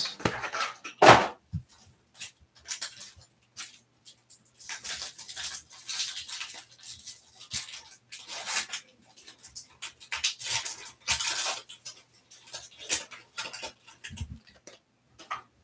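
A foil trading-card pack wrapper torn open and crinkled by hand, in irregular crackling rustles, with a sharper tear about a second in.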